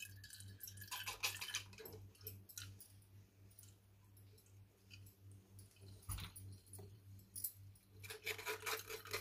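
Metal spoon scraping and pressing ground mint paste through a wire-mesh strainer over a glass jug: bursts of scratchy clicks and scrapes, densest near the end, over a faint steady low hum.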